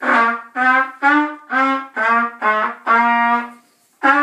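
Trumpet played by a beginner: a short phrase of about eight separate notes, each tongued with a gap before the next, where the part marks them to be slurred.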